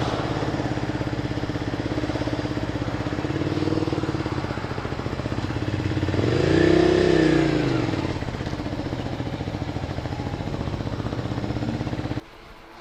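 Honda VTR250's 250 cc V-twin engine running at low revs, rising once in pitch and falling back about halfway through, then cutting off abruptly near the end.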